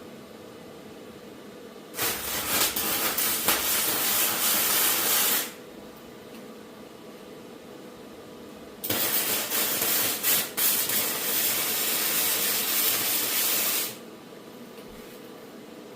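Two long bursts of loud hissing, the first about three and a half seconds long, the second about five, each cutting off suddenly.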